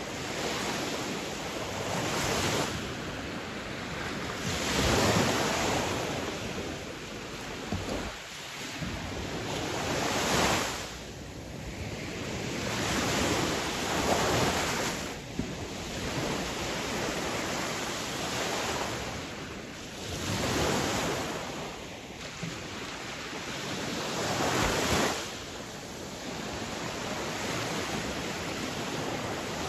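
Sea waves breaking on a shore: a continuous wash of surf that swells into a louder crash every four to six seconds.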